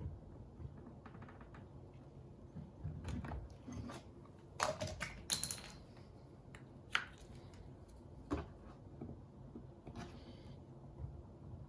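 Scattered light clicks and taps of hard parts being handled, with a few louder knocks about five seconds in and single ones later.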